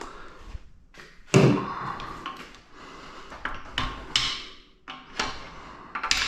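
Metal engine parts and tools knocking and scraping as they are handled. The loudest knock comes about a second and a half in, and several smaller ones follow.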